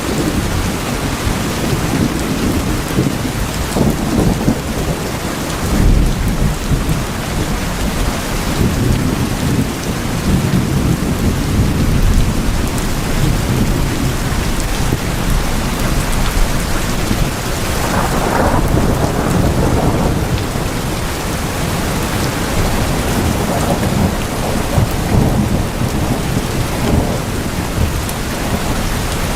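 Steady heavy rain falling on tin roofs, with low thunder rumbling and swelling underneath.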